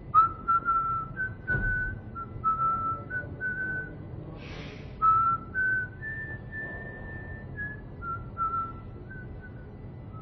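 A person whistling a simple tune in short phrases, one clear note at a time, with a longer held higher note a little past the middle, over a low steady background hum.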